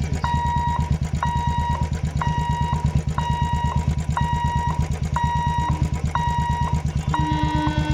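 Level-crossing warning hooter beeping steadily, one half-second beep about every second, over the low, fast pulsing of an engine running. Near the end a lower horn sounds in a few short blasts.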